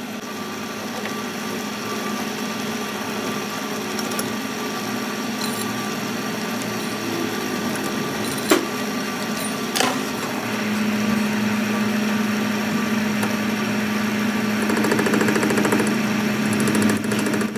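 A workshop machine's motor running steadily with a hum. Its hum grows louder and stronger a little past the middle, and two sharp clicks come shortly before that.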